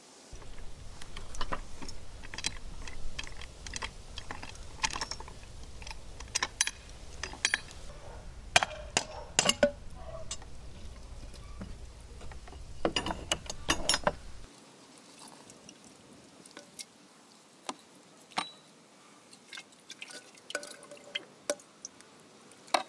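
Scattered clicks, taps and light clinks of cookware being handled, including the metal lid of an Afghan pressure cauldron, over a low rumble. About two-thirds of the way through the rumble cuts off, leaving only sparse clicks.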